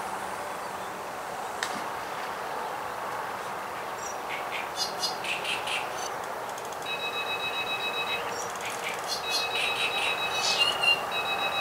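Electronic carp bite alarms on a rod pod beeping in rapid runs of a high two-pitch tone, in stretches of about a second from about halfway through, as the line is set on them. Bursts of rapid clicking come just before and between the stretches.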